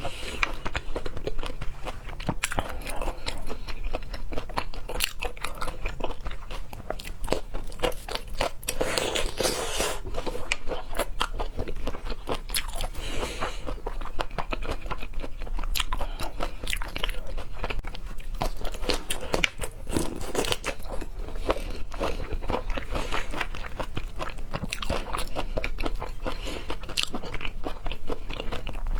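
Close-miked chewing and biting of raw seafood, with many small, irregular crunching clicks.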